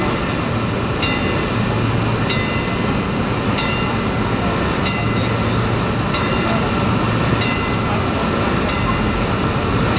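A warning bell strikes evenly about once every second and a quarter, typical of a level-crossing bell. Under it runs the steady hum of a passenger train standing at the platform, with people talking.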